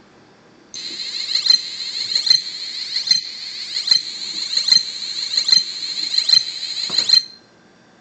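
Piezo buzzer of a homemade ATtiny85 refrigerator door alarm sounding a high-pitched continuous beep, with a sharp click-like accent a little more often than once a second. It starts about a second in and cuts off suddenly near the end, an alarm meant to signal that the fridge door is open.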